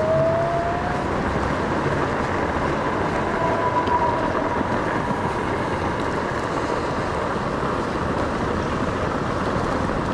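Apollo Go dual-motor electric scooter rolling over brick pavers: a steady rumble of the small tyres on the paving. A thin whine from the hub motors rises in pitch near the start and shows again about three to four seconds in.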